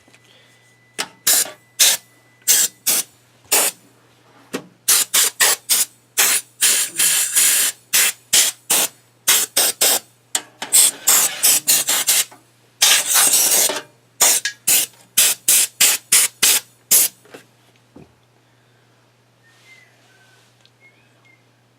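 Compressed air from an air compressor's blow gun hissing in many short blasts, some quick and a few held for about a second, as dust is blown out of a desktop computer case. The blasts stop about three seconds before the end.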